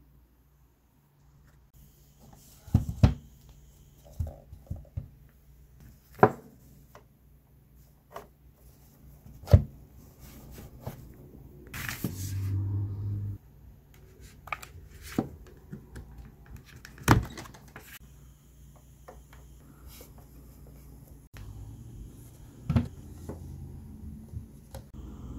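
Handling of a plastic thermal label printer and its cables: scattered sharp knocks and clicks as plugs are fitted and the unit and its lid are moved, with a steady rushing noise for about a second and a half around the middle.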